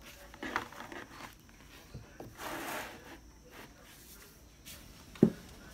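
A paper planner handled on a table: pages rustle and a longer paper swish comes as the book is closed. Near the end there is a single soft thump, the loudest sound.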